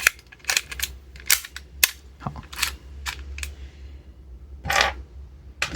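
Sharp metallic clicks and knocks from the parts of a Tokyo Marui 1911 gas blowback airsoft pistol being handled and fitted together: about seven separate clicks, with a short rasp nearly five seconds in.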